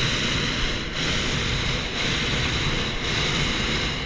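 Hot air balloon's propane burner firing in one long blast, a loud steady rush that cuts off suddenly at the very end.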